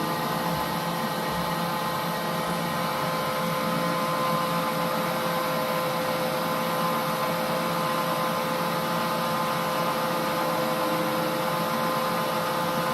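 Holbrook C8 toolroom lathe running steadily, a constant motor and gearbox hum with a few steady tones.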